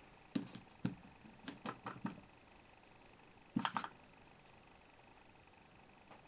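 Small, sharp plastic clicks and taps from handling a blush compact and makeup brush: several light ones in the first two seconds, then a louder cluster about three and a half seconds in.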